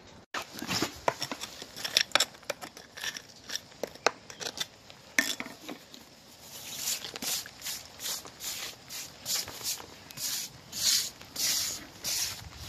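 Stiff hand brush scrubbing out the joints between wet stone paving slabs before re-pointing, in short scratchy strokes. The strokes are irregular at first and settle to about two a second in the second half.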